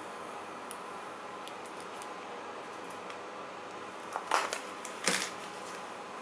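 Light plastic clicks from a small phone being handled, then two short, louder clicking scrapes about four and five seconds in as the phone's plastic back cover is pried off.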